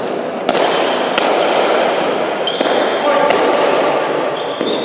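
Basque pelota rally: about five sharp smacks of the hard ball striking the front wall, floor and players' hands, each ringing on in the big reverberant court, over the murmur of voices.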